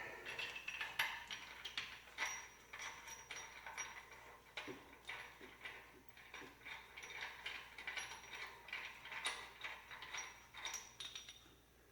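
Light metallic clinks and taps, irregular and ringing briefly, as tools and small steel engine parts are handled while pulling parts out of an engine block.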